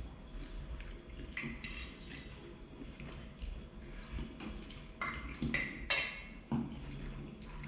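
Metal fork clinking and scraping against a ceramic dinner plate while eating, in scattered strokes. A cluster of sharper clinks comes about five to six seconds in and is the loudest part.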